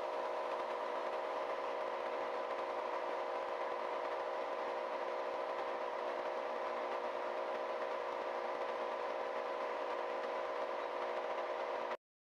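Metal lathe running steadily, its motor and gearing giving a constant, even-pitched hum. It cuts off abruptly near the end.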